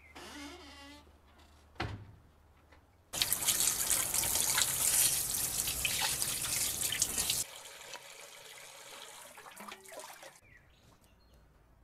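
Tap water splashing onto pieces of lamb as they are rinsed by hand in a metal tray. It starts abruptly about three seconds in and cuts off about four seconds later, then gives way to a quieter run of water for a few seconds.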